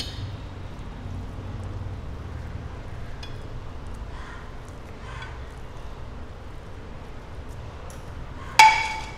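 Quiet scraping and handling as a silicone spatula pushes cooked bhagar mixture out of a pan onto a stainless steel plate. Near the end comes one sharp metallic clink that rings briefly, the steel plate or pan being struck.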